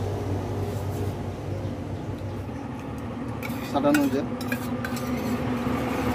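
A metal spoon scraping and clinking inside a small stainless-steel tiffin box while eating from it, with a handful of sharp clinks between about three and a half and five seconds in, over a steady background hum.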